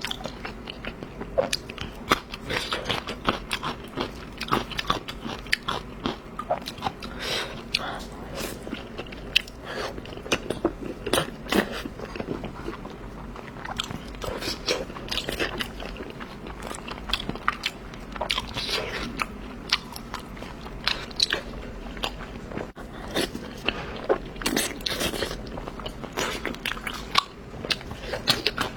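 Close-miked mouth sounds of someone eating: steady biting, chewing and wet crunching, with many irregular clicks and smacks.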